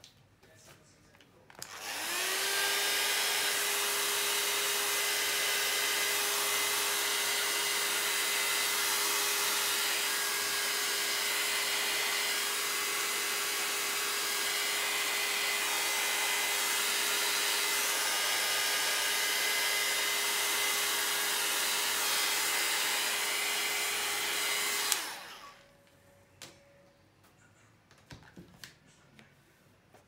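Small handheld electric hot-air blower running, used over alcohol ink on paper. It spins up with a brief rising whine about two seconds in, holds a steady whirring hiss with a motor hum, and switches off abruptly near the end.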